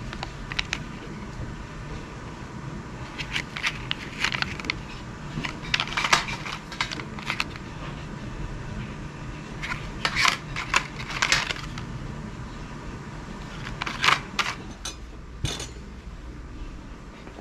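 Small hard items clicking and clinking as they are picked up and set down, in several short clusters, over a steady low room hum.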